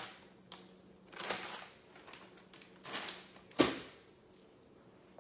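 Kitchen-sink handling noises: two short rustles of a plastic bag, then a sharp knock about three and a half seconds in, the loudest sound.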